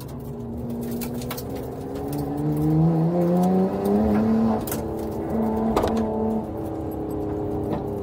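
Nissan Skyline GT-R's RB26DETT twin-turbo straight-six heard from inside the cabin, pulling hard with its pitch climbing over the first four seconds, holding, then easing off about six seconds in. A few sharp clicks sound over it.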